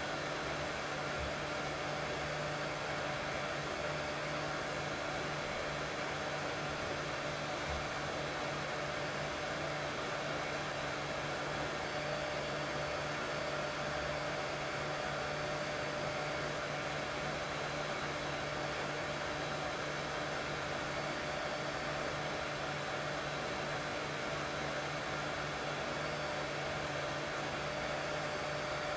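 Steady, unchanging white noise for soothing a baby, a continuous whoosh with a constant hum underneath.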